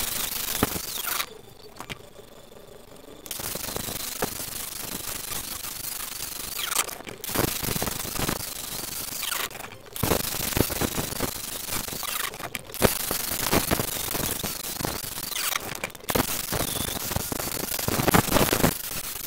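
Angle grinder with an abrasive disc sanding the weathered wooden rim of an old cart wheel, a steady rough grinding noise. It drops to a quieter run for about two seconds just after the start and dips briefly several more times as the disc comes off the wood.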